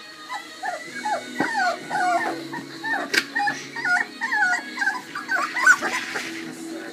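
Husky puppies crying: a run of short, high whining calls, each gliding up or down in pitch, coming one after another.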